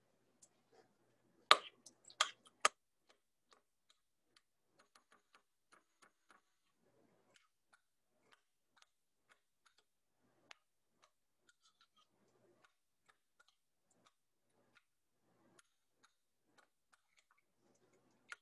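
Metal spoon clinking and scraping against a ceramic bowl as avocado chunks are mashed into milk. Three sharper clinks come about two seconds in, then faint, irregular light ticks.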